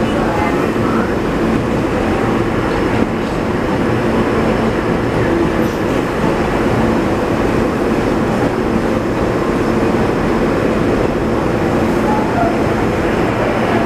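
R160 New York City subway train running steadily, heard from on board: a constant rumble of wheels on track with a steady hum in it.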